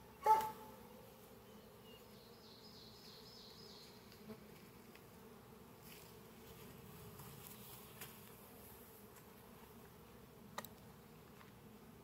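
Russian honey bees buzzing in a steady low hum around an open hive. There is a short pitched sound right at the start, and a few faint clicks later on.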